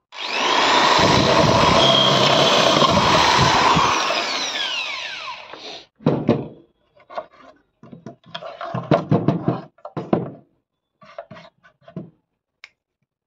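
Electric hand drill running at full speed through plywood, then released about four seconds in and spinning down with a falling whine. After that come scattered knocks and scrapes as the cut-out plywood disc is broken loose and pushed out of the speaker hole.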